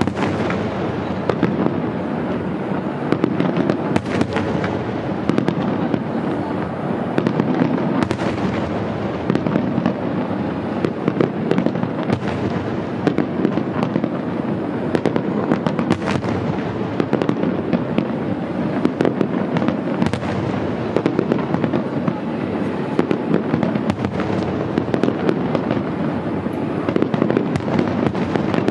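Fireworks display: aerial shells bursting one after another without pause, a dense run of overlapping bangs.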